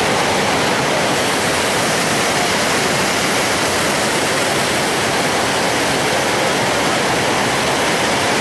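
Waterfall rushing: a steady, loud roar of falling water that stays even throughout.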